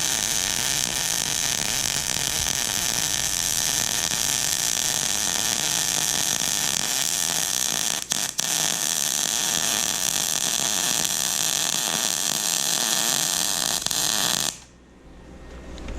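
Electric arc welding: a steady hissing crackle of the arc as a bead is run. The arc breaks twice very briefly about halfway through, then cuts off shortly before the end.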